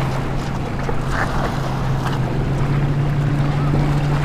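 Steady low motor drone with one clear pitch that steps up slightly about two to three seconds in, over wind rushing on the microphone.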